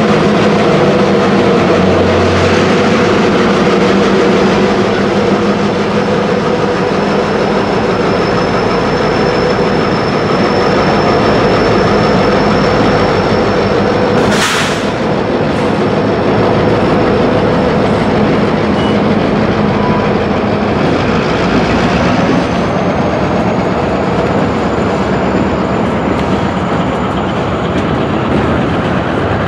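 Freight hopper and gondola cars rolling slowly along yard track, wheels clicking over rail joints with a thin, steady high wheel squeal, and one sharp metallic clank about halfway through.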